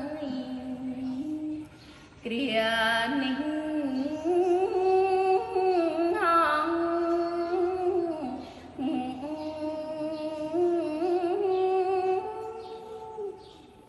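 A woman's solo voice chanting Khmer smot (Buddhist verse chanting) in long held notes that waver and ornament around the pitch. The line breaks for a short breath about two seconds in and again around eight seconds, and fades near the end.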